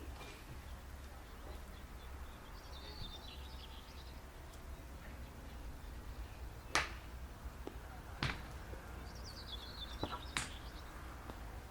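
Country club outdoor ambience: birds chirping in two short bursts over a steady low rumble, with four sharp knocks, the loudest about seven seconds in and the rest spread over the next few seconds.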